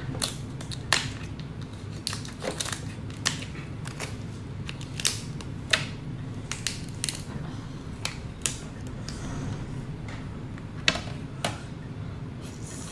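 Cooked lobster shell being cracked and pulled apart by hand: irregular sharp cracks and snaps.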